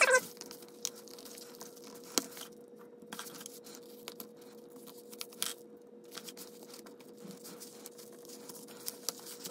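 Plastic opening pick scraping and clicking along the seam of an iPhone 5's stuck screen as it is pried loose, with the paper under the phone crinkling. Scattered light clicks over a faint steady hum.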